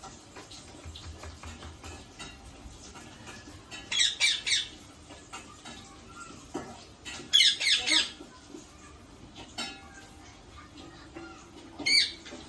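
Indian ringneck parakeet squawking in short, harsh calls: three quick calls about four seconds in, a longer run of calls around seven to eight seconds, and one more call near the end.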